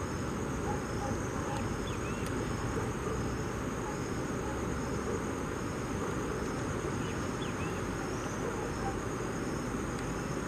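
Steady rush of river water flowing over rocks. A high, continuous insect trill and a softer high call pulsing a little more than once a second sound above it.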